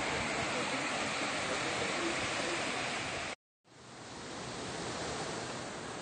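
Steady rush of a waterfall pouring into a rock pool. The sound cuts out abruptly about three and a half seconds in, then the rushing water fades back in.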